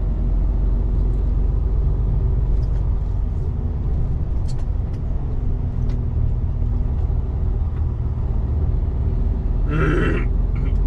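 Truck's diesel engine and road noise heard from inside the cab while driving, a steady low drone. A brief higher-pitched sound just before the end.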